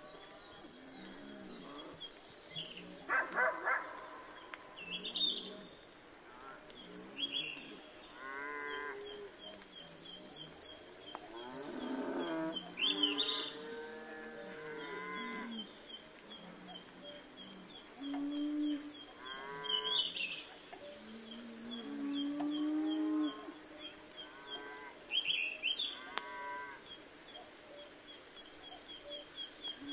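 Cattle mooing, several separate calls some held for a second or more, over a steady background of small high chirps repeating at an even pace.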